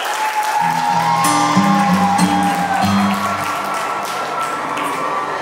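Music starts about half a second in, with held melody notes over a low steady accompaniment, while applause and cheering from the guests carry on underneath.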